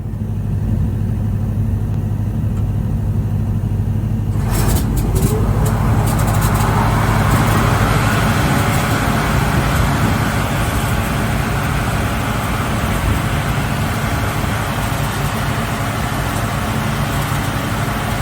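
Rojek BS 1100 wide-belt sander switched on and running empty: a steady low motor hum, then about four and a half seconds in a second motor comes up to speed, adding a rising whir that settles into a steady rushing sound.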